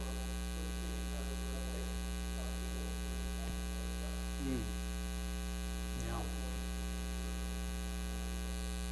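Steady electrical mains hum with a buzzy stack of overtones running under the recording. A faint, distant voice speaks off-microphone a few times.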